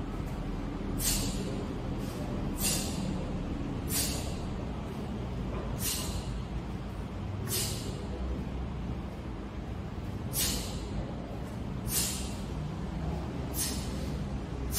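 Sharp hissing bursts, one with each fast strike or kick of a taekwondo pattern: the uniform snapping and breath forced out. About eight, unevenly spaced, over a steady low background rumble.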